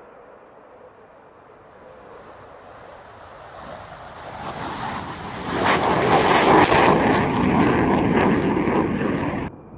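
Fighter jet engine noise building as a jet takes off, growing from a low rush to a loud, steady blast about halfway through, then cut off abruptly near the end.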